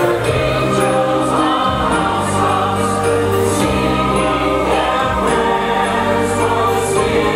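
A choir singing a Christmas carol over music with a held bass line, steady and loud throughout.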